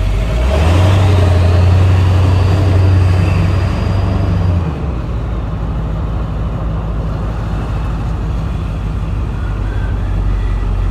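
Motorhome engine running as the RV pulls forward at low speed, with a louder low hum for the first four seconds or so, then settling to a steadier, quieter running.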